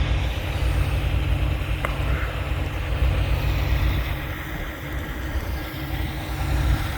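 Truck engine idling, a steady low drone.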